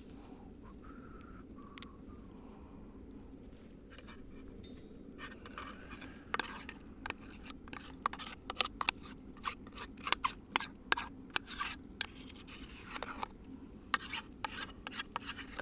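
A utensil scraping and clicking against a cooking pan as eggs are stirred, in quick irregular strokes that start about five seconds in, over a steady low hum.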